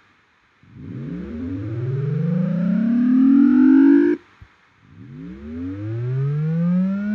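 Synthesized triangle-wave tone from a Blender Audio Nodes oscillator, its pitch gliding steadily upward while a note is held, because the Piano node's runtime value keeps growing and is multiplied into the frequency. The first rising note cuts off suddenly about four seconds in, and a second starts low about half a second later and climbs again.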